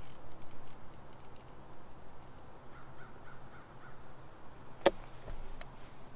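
Quiet open-water ambience on a fishing boat: a faint steady low hum, a short run of faint pulsed calls about three seconds in, and a single sharp knock about five seconds in, the loudest sound, followed by a couple of lighter ticks.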